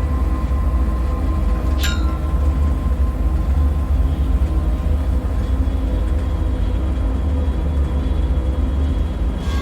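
Dark ambient bunker drone: a deep, steady low rumble with a faint hum, and a short high squeal sliding down in pitch about two seconds in.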